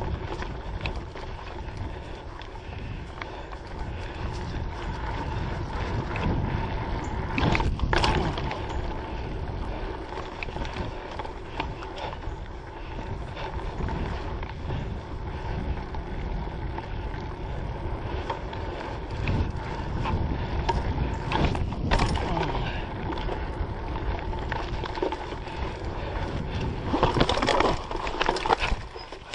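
Mountain bike on a dirt singletrack filmed from an action camera on the bike or rider: continuous rumble and rattle of tyres, frame and drivetrain over the rough trail. Louder clattering knocks come about eight seconds in, around twenty-two seconds, and in a burst near the end as the bike hits bumps.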